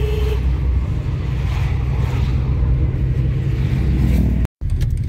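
Car driving in city traffic, heard from inside the cabin: a steady low rumble of engine and road noise, with a short steady tone at the very start. The sound drops out for a moment near the end at an edit.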